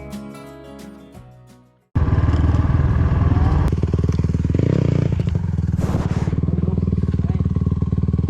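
Background music fades out over the first two seconds. It then cuts abruptly to a four-wheeler (quad) engine running steadily and loudly.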